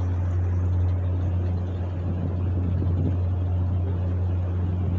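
Boat motor running steadily at low speed, a constant low hum.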